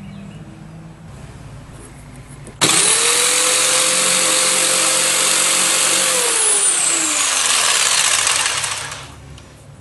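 Electric power saw switched on, spinning up almost at once with a loud hiss and a steady whine, running for about three and a half seconds, then switched off, its whine falling as it winds down; the noise dies away about nine seconds in.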